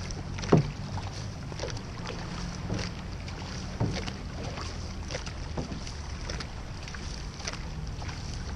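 Paddles of a six-person outrigger canoe (OC6) digging into calm water and pulling through, giving short splashes in a steady rhythm, with wind rumbling on the microphone underneath.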